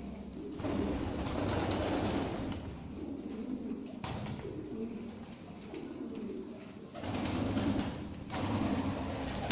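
A flock of Lahore pigeons cooing together, many overlapping low coos in a continuous murmur, with a few brief flutters of wings.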